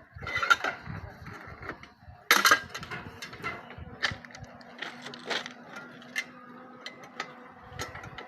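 Irregular metallic knocks and clinks from rail track repair work. The loudest strike comes about two seconds in, with single sharper knocks every second or so after it.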